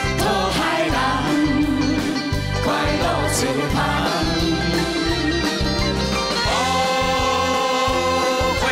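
A mixed group of male and female singers sings a Taiwanese Hokkien pop song together over a band backing track.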